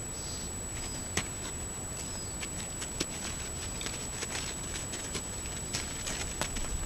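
Desert bighorn sheep hooves clicking and scuffing on loose rock and gravel as the animals move about on a steep slope: scattered, irregular sharp ticks over a low hiss. A thin, steady high-pitched tone runs underneath.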